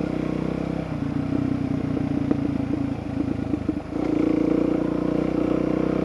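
Dual-sport motorcycle engine running as the bike rides along a gravel road. The engine note dips briefly about two-thirds of the way through, then comes back louder and steadier as the throttle opens.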